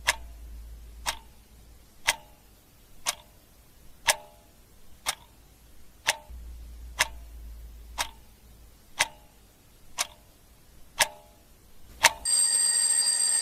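Clock ticking exactly once a second, a countdown timer running, then about twelve seconds in an alarm starts ringing steadily: the timer's time is up.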